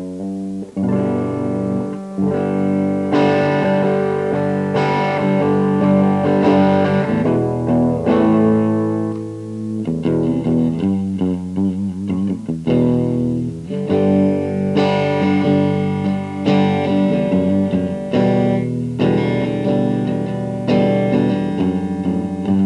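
Electric guitar played through a mini Marshall JCM800 amp into a cabinet of RFT L2403 12.5 cm TV speakers, with a run of changing chords and notes ringing out.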